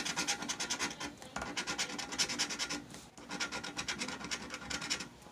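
A scratch-off lottery ticket being scratched, with rapid back-and-forth strokes rubbing off the coating. It comes in three spells, with brief pauses about a second and a half and three seconds in.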